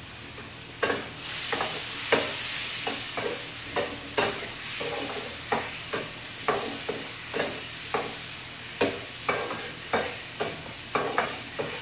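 Food frying and sizzling in a pan while it is stirred. The stirring utensil knocks against the pan about twice a second, starting about a second in.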